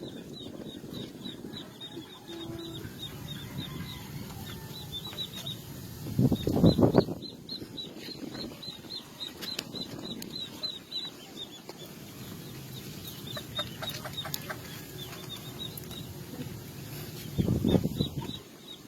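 A dog scraping and pushing loose soil, with two louder scuffing bursts, one about six seconds in and one near the end, over rapid high chirping repeated several times a second.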